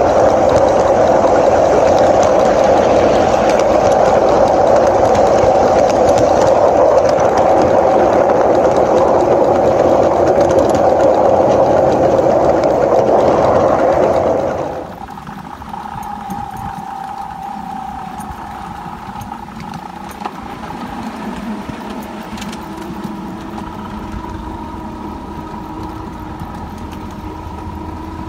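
5-inch gauge LNER Y5 miniature steam locomotive and riding truck running along the track, a loud steady rumble heard close-up from the driving position, cut off suddenly about halfway through. After that comes a quieter, steady engine drone with a few held tones from the full-size diesel train idling nearby.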